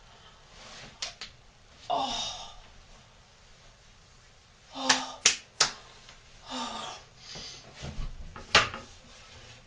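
A woman breathing out in a few short breathy gasps, with sharp clicks and smacks in between. The loudest are a quick run of three clicks about halfway through and one more near the end.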